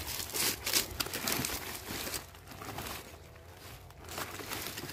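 Dry coconut fronds and dead leaves rustling and crackling as a gloved hand pushes in among them to take hold of a wire-mesh trap, in irregular crackles that ease off about three seconds in.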